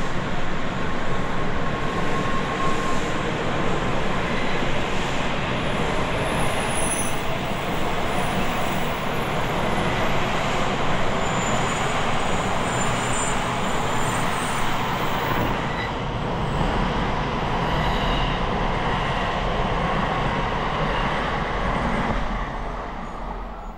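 Tokaido Shinkansen N700A train passing through the station at high speed: a loud, steady rushing of wheels and air that fades quickly as the last car goes by near the end.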